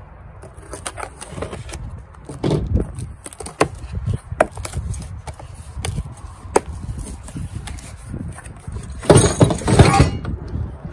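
Cardboard box being cut open and its flaps pulled back, with rustling plastic and bubble wrap and scattered clicks of small parts throughout. Near the end a louder rush of crinkling and clatter as the box is lifted away and the bagged parts tumble out. Wind rumble on the microphone underneath.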